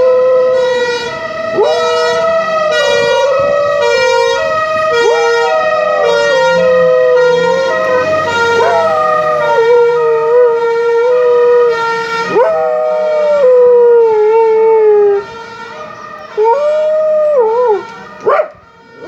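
A dog howling along with a fire siren. The siren steps back and forth between two pitches, and each howl jumps up sharply and then slides slowly down. The siren stops about fifteen seconds in, and the dog howls twice more on its own.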